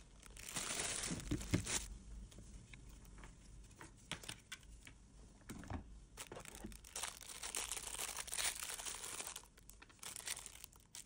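Clear plastic packaging bags crinkling as they are handled and opened, in two spells with a few light clicks between.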